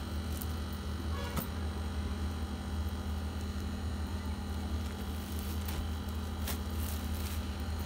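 Steady low background hum, with a few brief crisp rustles as folded cloth suits and their plastic wrappers are handled.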